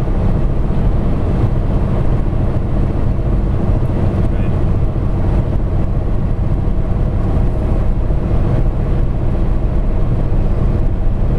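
Steady low rumble of road, tyre and engine noise heard from inside a car cruising at highway speed.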